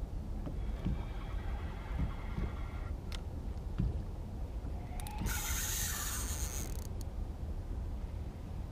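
Spinning reel whirring as a hooked fish is played on a bent rod: the reel's gears and drag running in stretches, with a longer, louder hissing whir about five seconds in, over a steady low rumble.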